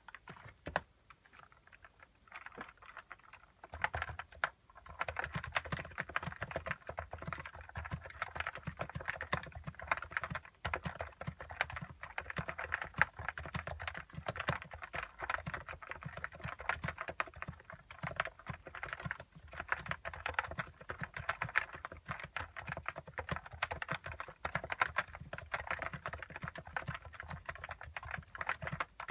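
Typing on a Plum 84 electro-capacitive Topre-clone keyboard with lubed 35 g switches and no dental-band dampers. A few scattered keypresses give way, about four seconds in, to a steady, fast stream of keystrokes.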